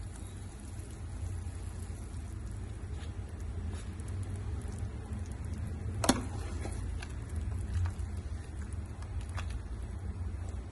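Chicken soup cooking in a pot: a steady bubbling patter over a low rumble, with one sharp clink about six seconds in.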